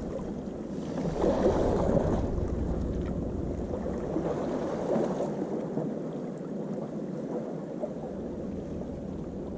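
Seawater washing and sloshing among the concrete tetrapods of a breakwater, with a louder surge about a second in and a smaller one around five seconds.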